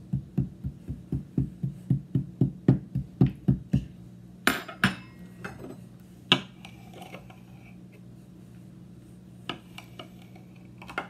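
Rapid soft taps of a metal spoon on kinetic sand, about five a second for the first four seconds. Then come a few sharp metal clinks and scrapes as a knife cuts into the sand, over a steady low hum.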